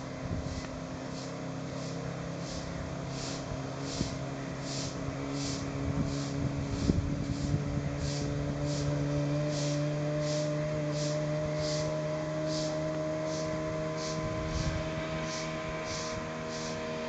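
An engine running steadily, its pitch rising slowly, with a high pulsing about one and a half times a second above it.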